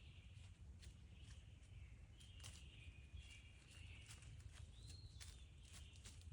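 Faint bird calls, short chirps and one rising-and-falling note about five seconds in, over a low outdoor rumble with scattered soft clicks.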